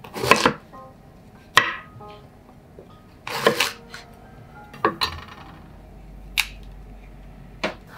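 Chef's knife cutting through crisp green peppers on a wooden cutting board: about six short crunchy cuts, a second or so apart, over soft background music.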